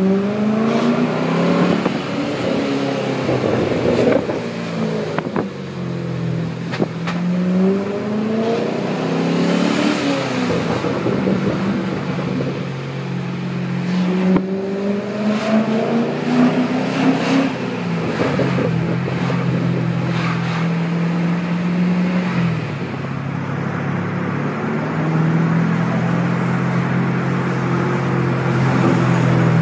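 Vauxhall Monaro's V8 engine and exhaust heard from inside the cabin, pulling up through the gears several times, each time rising in pitch and dropping back at the shift. In the second half it holds steady revs while cruising.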